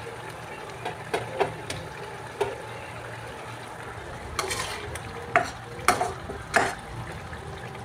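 Stuffed brinjals being set into a thick simmering masala gravy in a kadhai, with light ticks at first, then a spatula stirring and knocking against the pan a few times in the second half over the gravy's low sizzle.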